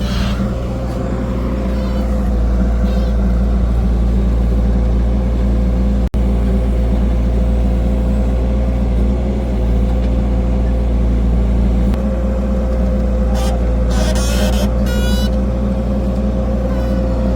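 Heavy diesel engine running steadily at a constant speed, with a steady whine above the engine note. The sound cuts out for an instant about six seconds in.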